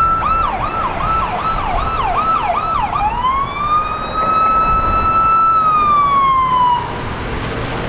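Emergency vehicle's electronic siren in a fast yelp, switching about three seconds in to a slow wail that rises, holds, then falls and stops near the end, over the steady noise of road traffic.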